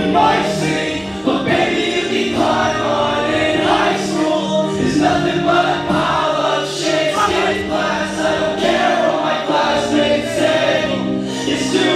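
Loud live hip-hop song played through the venue's sound system, with sung vocals made up of several voices over the backing track.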